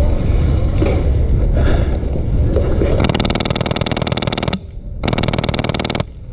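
Two bursts of rapid full-auto fire from an HPA airsoft light machine gun (a Mk48-style build with a PolarStar F2 engine). The first burst starts about three seconds in and lasts about a second and a half. After a short pause comes a second, shorter burst that stops abruptly. Before the bursts there is a steady low rumbling noise.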